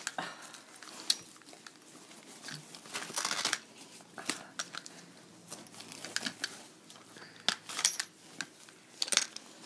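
Handling of a dog's strapped foot brace: the straps and padding rustle and rub with scattered small clicks, and there are short, louder scratchy passages about three seconds in and again near the end.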